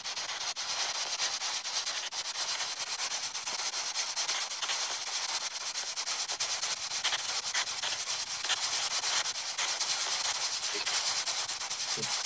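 Spirit box, a radio scanner that sweeps rapidly through stations, putting out a steady hiss of static broken by quick clicks as it skips from channel to channel. It is run here to listen for spirit voices in answer to a question just asked.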